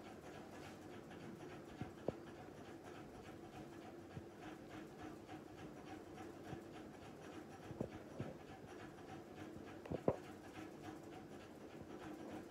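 Kitten grooming itself: faint, quick, rhythmic licking sounds with a few sharper clicks, over a steady low hum.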